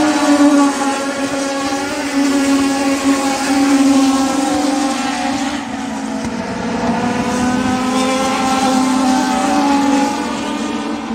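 Several Legends race cars running flat out around a short oval, their Yamaha motorcycle engines making a steady high-revving drone that wavers slightly in pitch as they lap.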